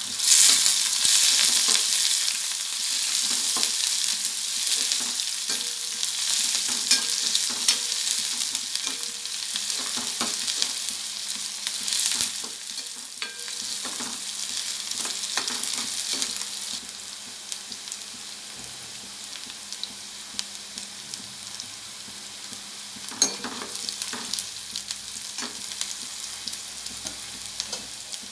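Chopped onions sizzling in hot oil in a nonstick kadai, stirred with a metal ladle that scrapes and clicks against the pan. The sizzle is loudest in the first seconds and eases down about two-thirds of the way through.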